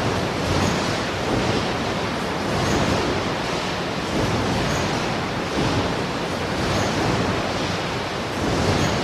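Automobile assembly plant ambience: a dense, steady wash of machinery noise that swells gently. A faint high hiss recurs about every two seconds, like a machine cycling.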